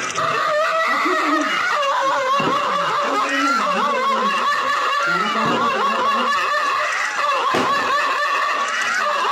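Several people laughing and chattering, a steady mass of overlapping voices.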